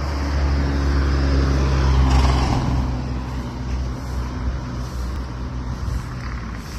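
A motor vehicle's engine running close by with a steady low hum. It is loudest about two seconds in and then fades away, as when a vehicle passes or pulls off.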